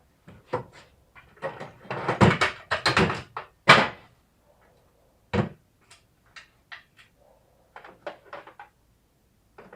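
Metal hand tools clanking and knocking against each other and against metal parts. There is a dense cluster of knocks about two to four seconds in, then scattered clicks and taps.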